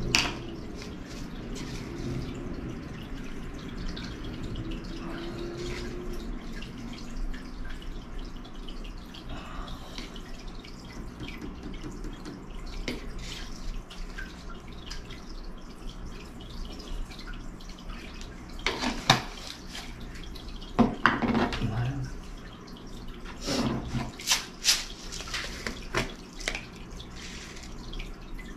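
Water dripping and running in a sink, with a low steady hum. A few sharp knocks and clatters come about two-thirds of the way through.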